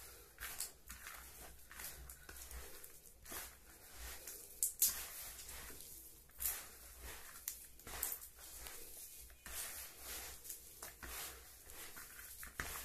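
Hands kneading and squeezing a crumbly, dry meal-based fishing bait mixed with duck eggs and ripe banana in a plastic basin: soft, irregular rustling squishes as handfuls are worked and dropped.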